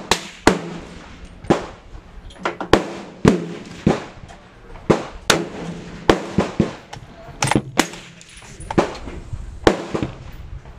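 Gunshots from several guns firing on a shooting range, sharp cracks coming irregularly about once or twice a second, each with a short ringing tail. That is too fast for a single bolt-action rifle, so several shooters are firing at once.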